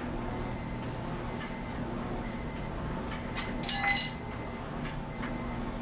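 Turbocharged Honda D16Y8 four-cylinder engine running steadily at idle. A short metallic clink sounds about two thirds of the way through.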